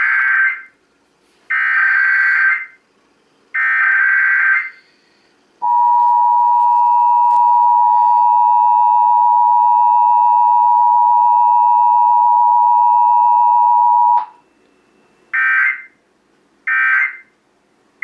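Emergency Alert System test broadcast over an FM radio. First come three loud, buzzy data bursts of about a second each (the header). Then the steady two-tone attention signal sounds for about eight seconds and cuts off suddenly, followed directly by three shorter end-of-message bursts with no spoken message in between.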